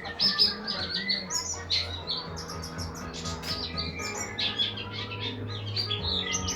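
A small songbird chirping rapidly, many short high chirps a second, over a steady low hum.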